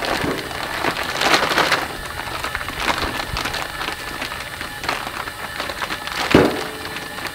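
Plastic wrapping crinkling and rustling in irregular bursts as it is handled and pulled off a roll of pre-impregnated resin repair liner, with a heavier thump about six seconds in.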